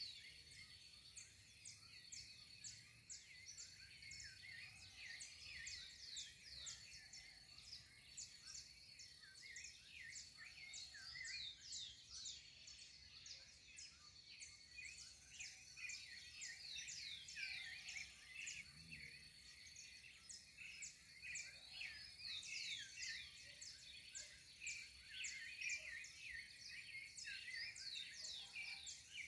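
Dawn chorus of many birds chirping and calling together, a dense stream of short high chirps and quick falling whistles, with a steady high-pitched tone running underneath.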